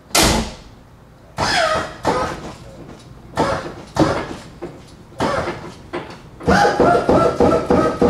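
Lowrider hydraulic suspension on a Ford Thunderbird being worked from the switches: a sharp thud at the start, then short bursts of the hydraulic pump motors as the switch is tapped and the front end lifts, with a steadier run of the pumps near the end.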